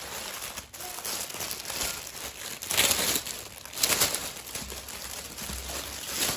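Clear plastic wrapping crinkling and rustling as it is handled and pulled off a basket, with the loudest crackles about three and four seconds in.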